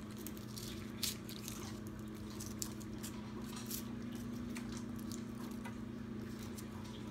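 Faint crinkles and ticks of a chocolate egg's foil wrapper being handled and peeled, over a steady low hum.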